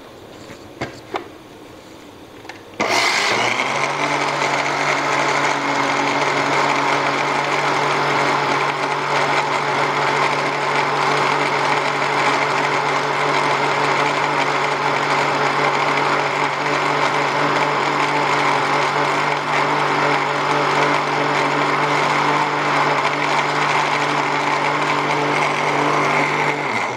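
Electric countertop blender with a plastic jar blending yogurt and milk into lassi. A couple of brief clicks as the jar is handled, then the motor starts about three seconds in and runs at a steady pitch, cutting off just before the end.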